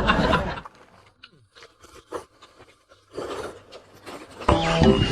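Eating sounds at the table: short clicks and scrapes of spoons and bowls and some chewing, with a soft noisy scrape about three seconds in. Background music starts abruptly near the end.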